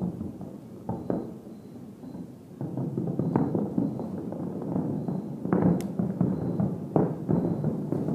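Distant aerial fireworks display: a quick, irregular run of shell bursts, each bang trailing off in a rolling echo over a continuous rumble. The bangs come thickest and loudest in the second half.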